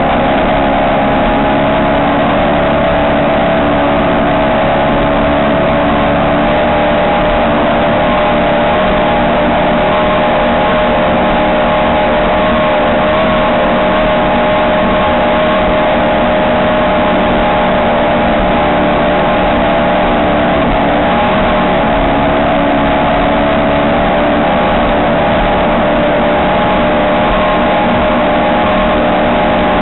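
Ski race boat engine running loud and steady, its note holding nearly constant in pitch with only slight wavers.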